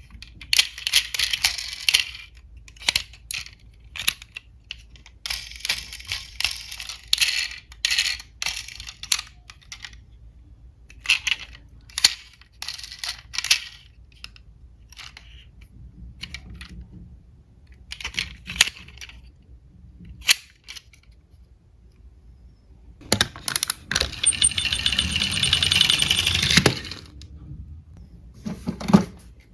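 Small diecast toy cars clicking and clattering as they are handled and run, a string of light metallic clicks and short rattles, with a longer, louder rattling clatter about three quarters of the way through.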